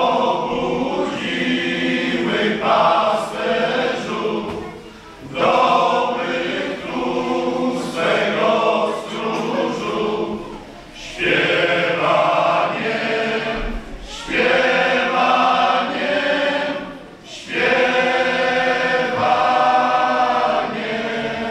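Men's choir singing a Polish Christmas carol (kolęda) a cappella, in long sung phrases with short breaks between them.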